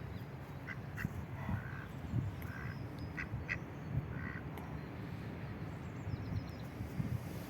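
Ducks quacking, a run of short calls in the first half, over a steady low background rumble.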